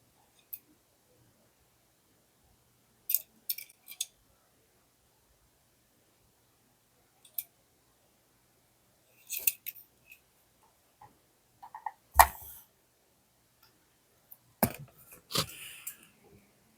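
Hot Wheels Premium car packaging being handled and opened: scattered sharp clicks and snaps of plastic and card, a loud knock about twelve seconds in, and a crinkling rustle near the end.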